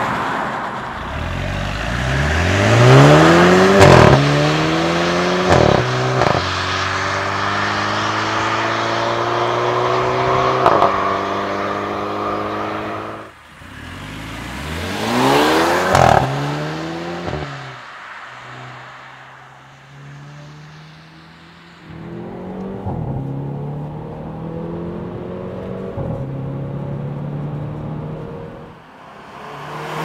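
Mercedes-Benz CLA 250's turbocharged four-cylinder engine accelerating hard, its pitch climbing and dropping at quick upshifts about four, six and eleven seconds in. The sound breaks off and picks up again a few times: a second hard pull about halfway, then a steadier, lower engine note near the end.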